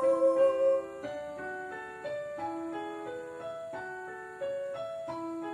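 A held sung note fades out under a second in, then a piano plays an instrumental interlude of gentle broken chords, one note after another.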